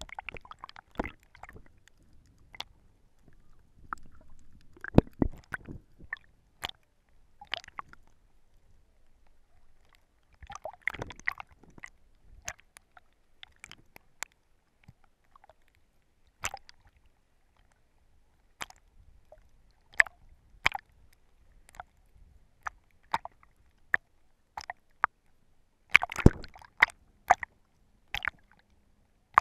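Water sloshing and splashing around a GoPro in its waterproof housing as a snorkeler swims at the surface: scattered sharp clicks and pops, with a few louder watery bursts, the biggest about five seconds in and again near the end.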